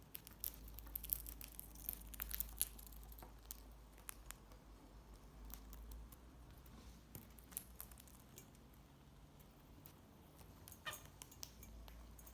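Cockatiels eating seed: small, irregular beak clicks and cracks of hulls, quick and dense in the first few seconds, then sparser, with another short cluster near the end.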